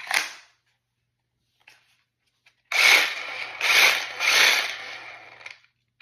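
Festool Carvex cordless jigsaw triggered in short bursts, its motor and reciprocating blade running with a rattly, ratchet-like chatter that surges three or four times before stopping. A brief click comes just before.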